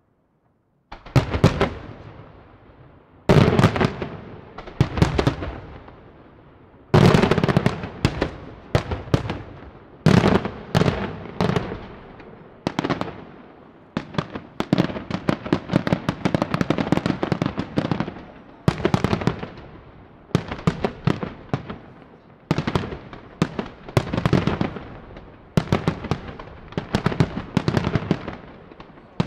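Aerial firework shells bursting in a display: loud sharp reports one after another starting about a second in, building into quick volleys with rapid crackling between the bangs.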